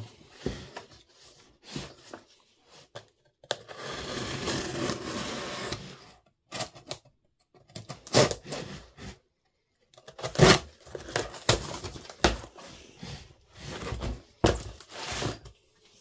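Single-bevel Victorinox pruning knife slicing through a cardboard shipping box: one long continuous cut a few seconds in, then a run of short sharp scrapes and knocks as the box is cut further and handled.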